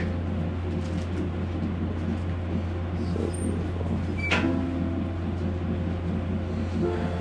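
A steady low hum, with one brief louder sound about four seconds in.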